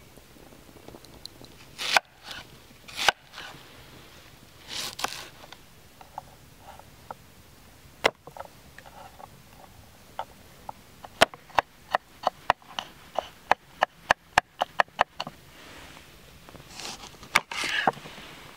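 Kitchen knife chopping on a wooden cutting board, mincing garlic: a quick run of sharp knocks, about four a second, in the middle, with scattered single knocks before it. Near the end comes a louder knock and a rasping cut as a lemon is sliced through on the board.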